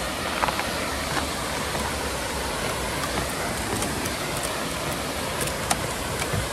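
Waterfall rushing: a steady, even roar of falling water, with a few faint clicks over it.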